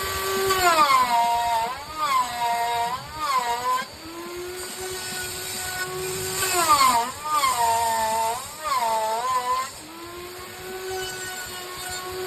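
Electric power tool cutting into wood in two long passes. Its motor whine drops and wavers as it takes load, then recovers between passes.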